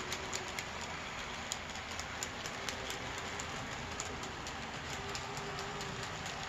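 OO gauge model coal train, hopper cars and caboose, rolling past on curved track: a steady rumble with irregular sharp clicks of the wheels over the rail joints, a few a second, and a faint steady hum.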